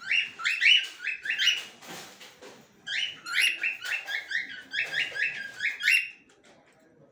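Cockatiel calling: a quick run of short, repeated calls, a lull of about a second, then a second longer run of the same calls.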